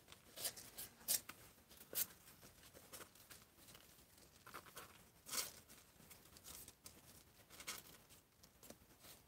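Faint, scattered scratching and rustling of newborn kittens crawling over one another on the cardboard floor of a box, with a few sharper scrapes here and there.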